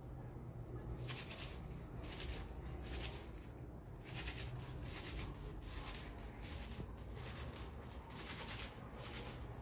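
Hands scrubbing a dish towel, fabric rubbing on fabric with dish detergent and no water, in faint repeated rustling strokes about two a second.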